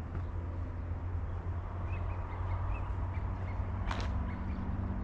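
Outdoor riverside ambience: a steady low rumble, with a run of faint short bird chirps about two seconds in and a single brief sharp sound near the end.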